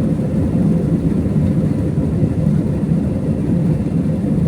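Airliner's jet engines running, a loud steady low rumble with a faint steady hum above it.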